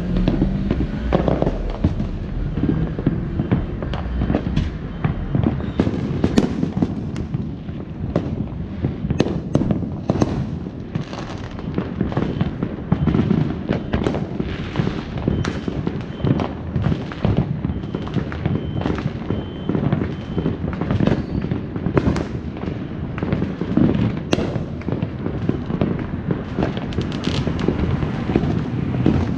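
Fireworks going off in a dense, unbroken run of pops, crackles and bangs, many overlapping one another.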